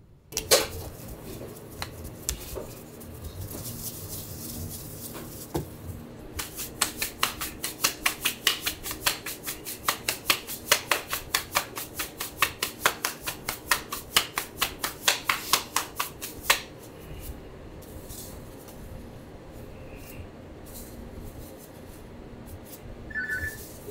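Pizza dough slapped and flipped between gloved hands to stretch it, a fast, even run of about four slaps a second that stops suddenly about two-thirds of the way through. Before it come softer, irregular pats as the dough is pressed out on the counter, and a low steady hum runs underneath.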